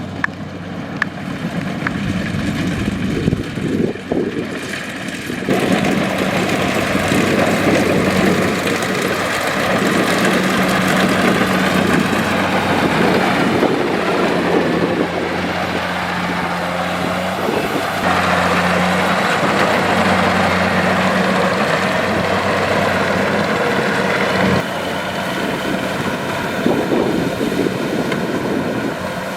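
Kubota DC-70 combine harvester's diesel engine and machinery running steadily with a low hum. It grows louder about five seconds in and drops back a little near the end.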